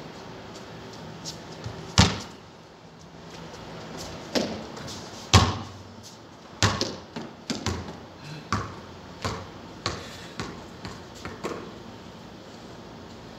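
A basketball hitting hard several times, with two loud strikes against the backboard and hoop in the first half. It then bounces on a concrete court in a steady run of about two bounces a second that grow softer.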